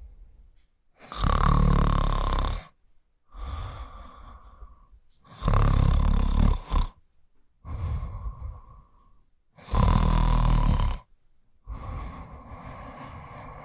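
Snoring sound effect: three loud snores about four seconds apart, each followed by a quieter breath out with a steady whistling tone.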